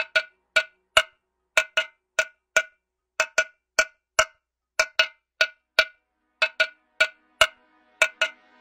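Electronic background music: a repeating pattern of short, bright, pitched percussion hits, like a cowbell or wood-block sample, with silence between the hits. A sustained synth pad comes in near the end.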